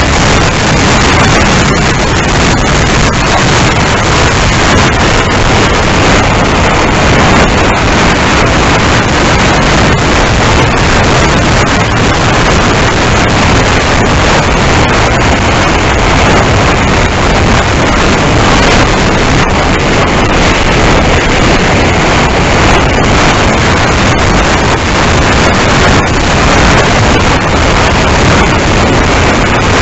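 Loud, steady rush of wind buffeting a small onboard camera's microphone, mixed with the electric motor of an RC plane flying at high speed, with scattered crackles.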